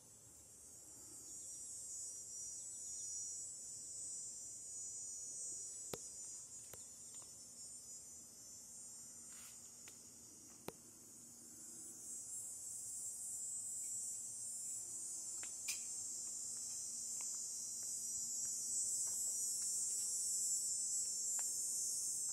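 Insects singing in a steady, high-pitched drone that grows louder after the first second and again later on, with a few faint sharp clicks and a faint low hum underneath.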